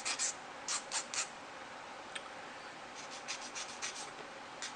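Small plastic model-kit parts being worked by hand, with short scratchy scraping strokes in a few quick groups.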